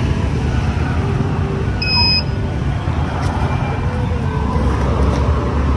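Road traffic noise, a steady low rumble of passing cars. A short electronic beep sounds about two seconds in.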